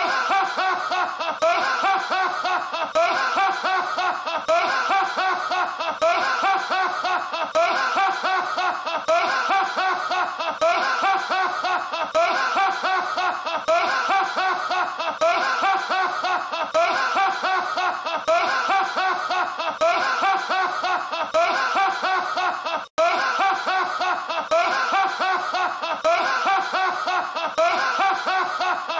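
A man's loud, open-mouthed laughter in a steady run of short bursts, about one a second, repeated as a loop with a split-second break about 23 seconds in.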